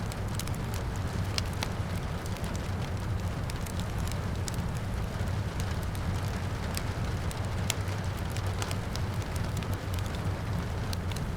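Wood fire crackling in a fireplace, with many irregular sharp pops and snaps over a steady low rumble, and rain falling steadily behind it.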